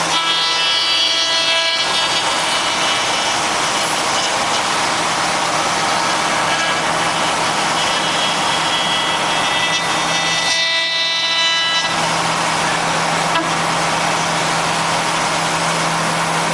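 Five-axis CNC router's spindle running with a high whine while its cutter carves a wooden workpiece, over a steady hiss of cutting. The tone shifts for a second or two at the start and again about ten seconds in.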